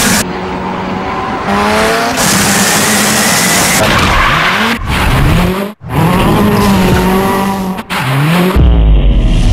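Ford Fiesta rally car engine revving hard, its pitch rising and falling, with tyres screeching as the car drifts. The sound changes abruptly several times and drops out briefly just before six seconds in.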